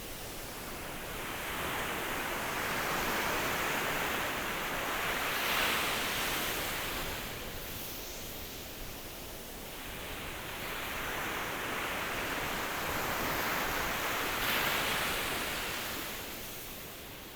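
Ocean surf: waves swell and ebb in a slow rhythm over a constant wash of water. Two wave peaks come about nine seconds apart.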